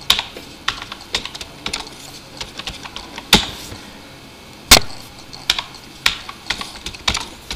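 Typing on a computer keyboard: an irregular run of key clicks, with two much harder keystrokes about three and a half and five seconds in.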